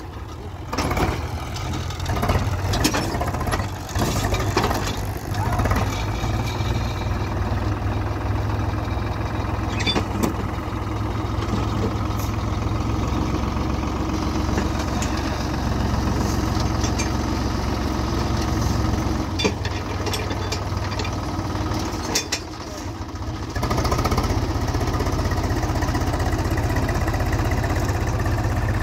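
Swaraj 735 XT tractor's three-cylinder diesel engine running under load as the tractor, stuck in sand, strains to pull a hitched trailer. Sharp knocks and clatter come in the first few seconds; about two-thirds through the sound briefly drops, then the engine runs louder and steadier.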